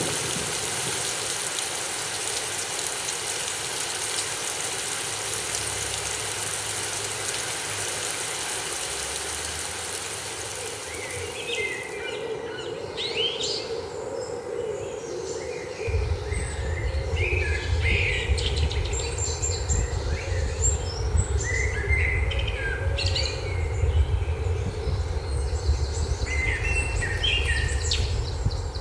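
Sound-test track played through bookshelf speakers and a Klipsch R-8SW 8-inch subwoofer. A steady hiss gives way to birds chirping, and about sixteen seconds in a strong, deep bass starts suddenly underneath.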